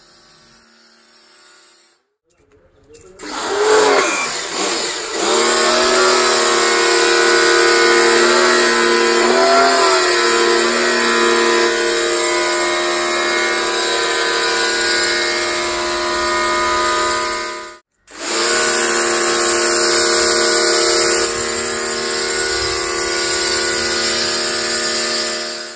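A 1500-watt, 125-bar ResQTech portable electric pressure washer running, its motor whine held steady over the hiss of the foam lance spraying shampoo. The whine starts about three seconds in, wavers in pitch a couple of times, and cuts out for a moment about two-thirds of the way through.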